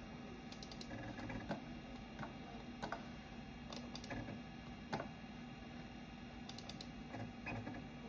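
An old 20 MB SCSI hard drive in a Macintosh SE seeking as a program loads: irregular single ticks and short clattering clusters of head clicks over a steady low hum.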